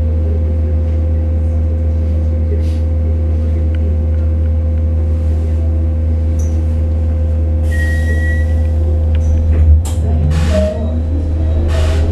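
Electric bus's drive system humming steadily with a constant tone while the bus stands, with a few short bursts of hiss. About ten seconds in, a rising whine from the electric traction motor climbs steadily in pitch as the bus pulls away.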